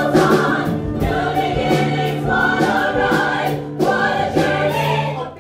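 A musical-theatre ensemble singing together in chorus over a band, with a steady beat and a long held bass note.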